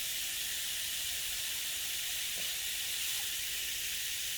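Steady hiss of running water as the lined pond fills and spills over into its river channel.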